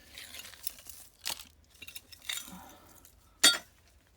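Broken glass and debris clinking and crunching as it is sorted through, in several separate sharp clinks, the loudest about three and a half seconds in.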